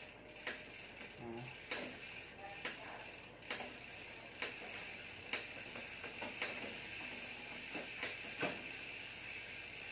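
Freehub ratchet of a freshly fitted Sagmit Evo 3 rear hub buzzing as the rear wheel spins and the cranks are turned by hand, with a light click about once a second.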